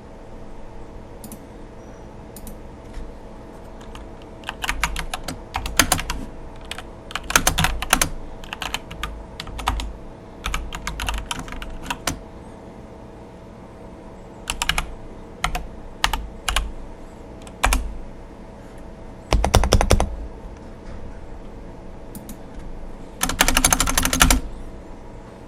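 Typing on a mechanical keyboard: bursts of quick keystrokes separated by pauses, with a dense run about twenty seconds in and another near the end.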